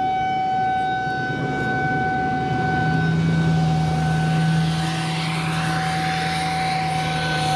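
Outdoor tornado warning siren sounding a steady tone over a low rumble of wind and traffic noise, with a lower hum joining about three seconds in.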